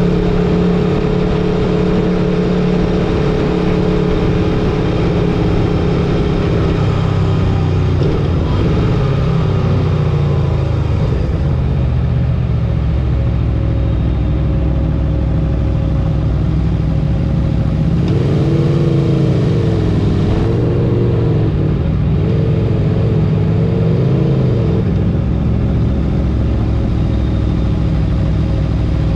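Aprilia Tuono V4 Factory's V4 engine running under way, picked up by a camera mounted on the bike, at fairly steady revs over constant wind and road noise. About two-thirds of the way through, the engine pitch wavers up and down for several seconds.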